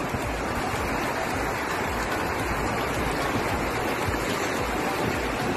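Steady rush of surf breaking and washing up the beach.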